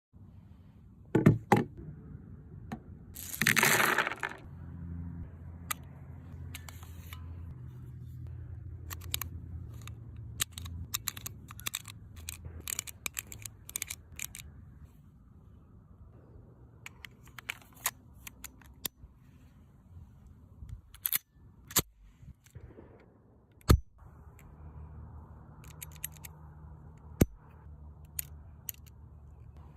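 Metallic clicks and clacks of a Smith & Wesson Model 59 9mm pistol being handled, coming at irregular intervals. About three and a half seconds in there is a louder scrape lasting about a second.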